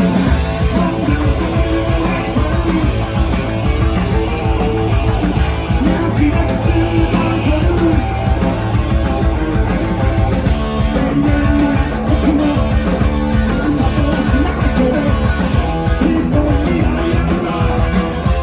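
Live rock band playing, with electric guitar, bass and drums keeping a steady beat.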